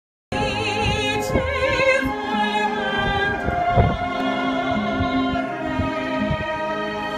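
A woman singing in operatic style with strong vibrato on long held notes, over orchestral-style backing music; it starts abruptly just after the start.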